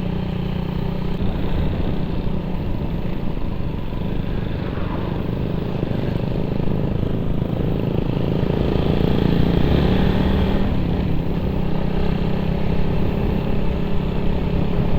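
Suzuki Raider 150 motorcycle with an open pipe, running steadily under way with road and wind noise, its engine note swelling a little around the middle.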